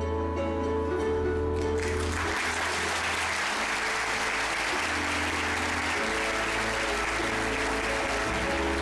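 Theatre audience applauding, the clapping breaking out about two seconds in and going on steadily, over closing music with long held notes.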